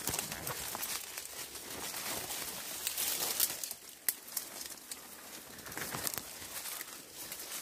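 Irregular rustling and crackling of leaves and twigs as someone pushes through dense forest undergrowth, with sharper snaps about three and four seconds in.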